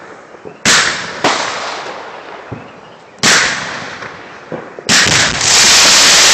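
Fireworks going off: several sharp bangs of shells bursting, each with a fading crackle. About five seconds in comes a sudden continuous loud hissing roar as many fireworks on the ground ignite at once, the display catching fire.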